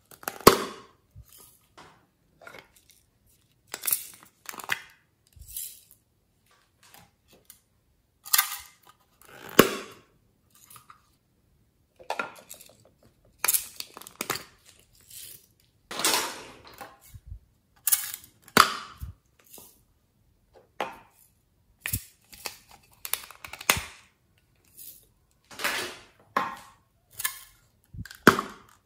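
Hard plastic slime containers being handled close to the microphone: many short, sharp plastic clicks, taps and knocks at irregular intervals, some with a brief scrape.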